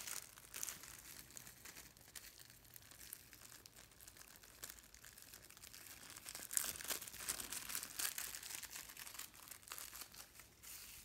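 Clear plastic packaging crinkling and crackling as small accessories are unwrapped by hand, in scattered bursts that grow busier in the second half.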